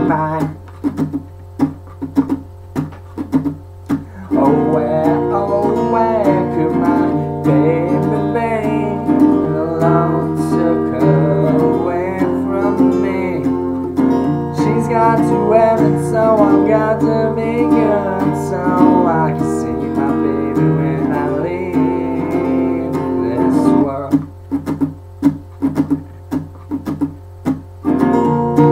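Acoustic guitar strummed in a steady rhythm. From about four seconds in until near the end, a man's wordless singing carries a melody over it, and then the guitar plays alone again.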